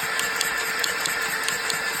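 Mercedes-Benz OM642 V6 turbodiesel in a Sprinter 319 idling steadily, with a regular light tapping about four to five times a second. The owner calls it a strange knock, a tapping in the engine.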